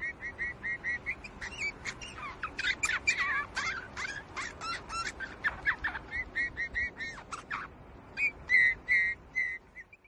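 Small birds calling: a quick run of short repeated notes, about five a second, then a busy jumble of varied chirps and whistles, and more runs of short calls near the end.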